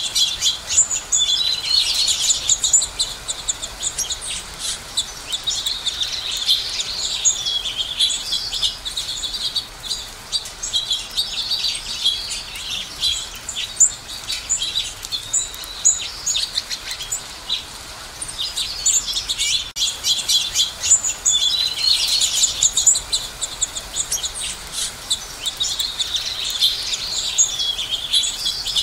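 Finches chirping and twittering: a dense, continuous chorus of high chirps that swells and fades.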